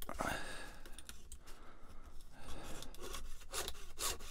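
Fine-toothed hobby saw cutting through a small plastic model part in short, irregular rasping strokes, with a quieter lull in the middle.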